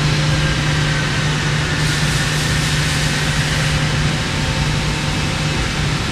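Steady hum of a powered-up 1996 Eurotech 730-SLE CNC lathe at idle: a low drone under even machine noise, with a faint hiss swelling between about two and four seconds in.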